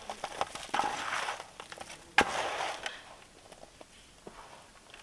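Hands mixing raw prawns with salt and turmeric in a steel bowl: a wet, crackling rustle in bursts over the first three seconds, with one sharp knock about two seconds in, then only a few faint ticks.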